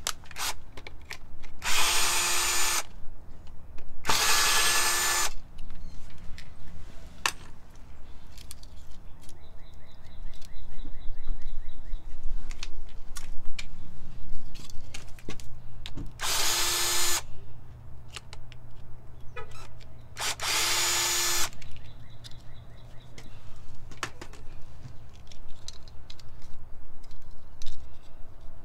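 Cordless drill-driver run in four short spurts of about a second each, two near the start and two around the middle, unscrewing an old doorbell push button.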